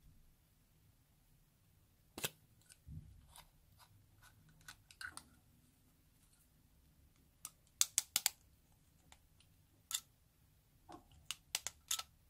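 Scattered sharp clicks and taps as plastic lipstick tubes and a plastic stick are handled over a glass dish, with a quick run of clicks about eight seconds in and another near the end.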